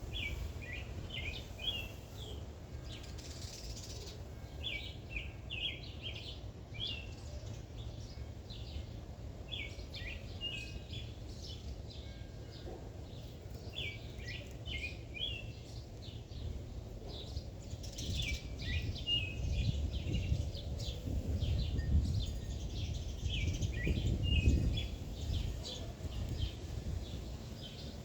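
Small songbirds singing: short chirping phrases repeated every few seconds. Under them runs a steady low rumble that swells louder in the second half.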